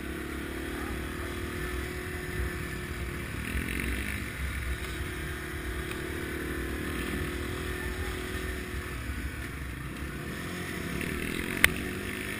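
Dual-sport motorcycle engine running at trail speed, revs rising and falling gently, with a low wind rumble on the microphone. A single sharp click near the end.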